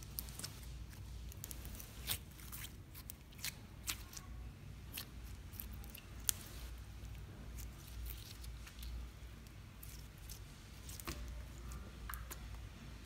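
Clear glitter slime squeezed and kneaded by hand, giving irregular sharp clicks and small squishes.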